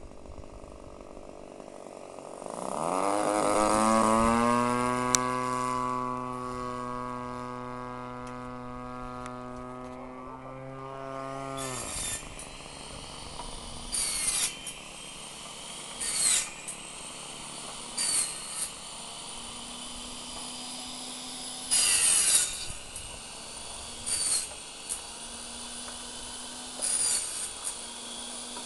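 DLE 20 single-cylinder two-stroke petrol engine of a radio-controlled aerobatic plane flying past: a loud buzzing drone that drops in pitch as it passes, then holds a steady pitch while slowly fading, and cuts off abruptly about twelve seconds in. After that, only short bursts of noise come every two seconds or so.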